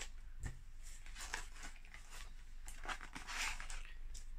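Cardboard mailer box being cut open and its lid pulled up: scattered short scrapes and clicks, then a longer rasping rustle of cardboard about three seconds in.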